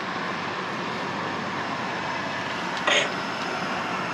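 A steady hiss of outdoor background noise, with one brief sharp clatter about three seconds in.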